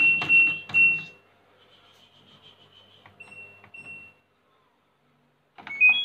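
LG Direct Drive front-loading washing machine control panel beeping: knocks and clicks with short high beeps in the first second, two more clicks and beeps about three seconds in as the controls are worked, then a quick rising three-note chime near the end.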